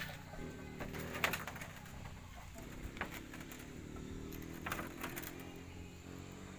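A dove cooing faintly in the background, with a few soft knocks.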